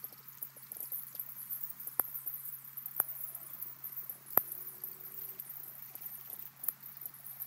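Outdoor pond ambience picked up by a fixed webcam microphone: a steady low hum under a fine, high-pitched crackle, with three sharp clicks about two, three and four and a half seconds in.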